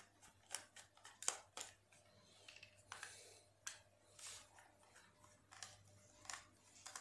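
Faint clicks and scrapes of a screwdriver undoing the screws on a Bosch cordless drill's plastic battery pack, a scatter of short irregular ticks.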